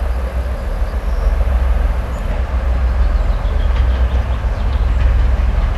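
2M62U twin-section diesel locomotive, with its two-stroke V12 diesels, hauling a loaded hopper train: a steady deep engine rumble mixed with the noise of the wheels and wagons.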